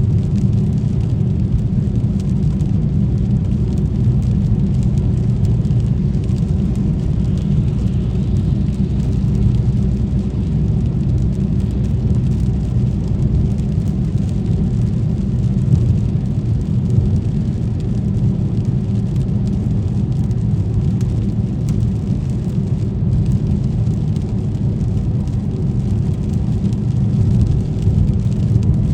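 Car driving along a rain-wet street: a steady, low road and engine rumble that holds even throughout.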